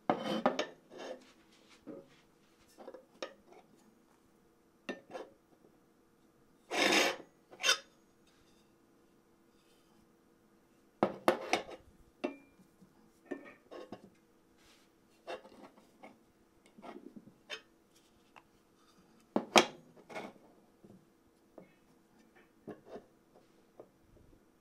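Aluminium desk phone stand being handled: scattered metallic clicks, taps and short scrapes, with one longer rub about seven seconds in.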